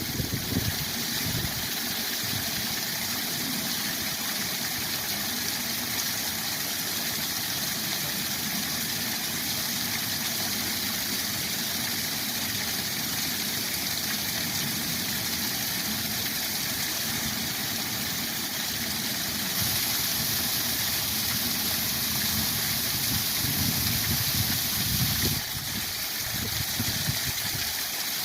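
Waterfall rushing steadily, a constant full roar of falling water that swells slightly for a few seconds past the middle.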